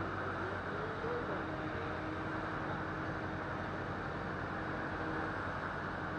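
Mobile crane's engine running steadily under load, a low hum with a steady whine that stops near the end.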